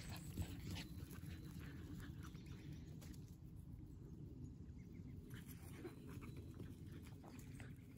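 Faint sounds of two Shetland sheepdogs running and playing on a grass lawn: scattered light rustles and ticks over a low steady rumble, with no barking.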